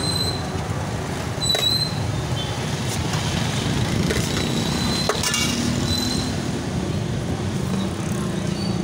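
Street traffic: a steady low rumble of engines, with a few sharp clicks and short high-pitched tones.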